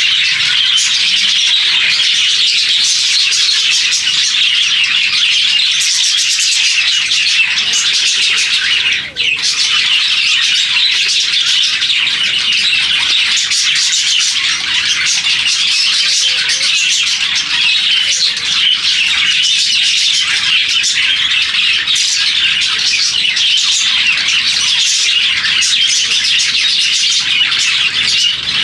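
A flock of small pet parrots, budgerigars and lovebirds, chattering and chirping together in a dense, continuous twitter. There is one brief drop about nine seconds in.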